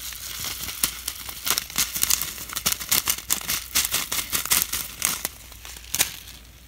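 Plastic bag crinkling in the hand as small foam beads are poured out of it into a glass bowl, a dense run of irregular crackles and ticks that thins out near the end.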